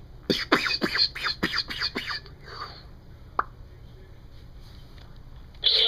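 Mouthed "pew pew" laser-blaster sound effects: a quick run of about eight shots, each a sharp falling sweep, over the first two seconds, like an X-wing firing. A single click follows, and a loud burst with a steady tone starts just before the end.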